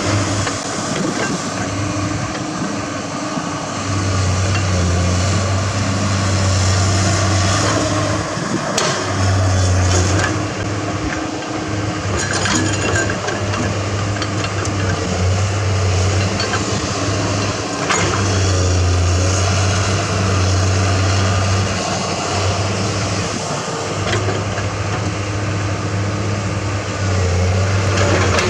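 Hydraulic excavator's diesel engine working under load, its low note swelling and easing every few seconds as the hydraulics work, with scattered knocks and scrapes of the bucket in dirt and rock.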